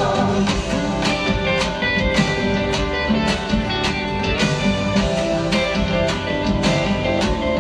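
Live Latin American folk-style instrumental music: strummed guitar keeping a steady rhythm with bowed strings and other ensemble instruments, between sung verses.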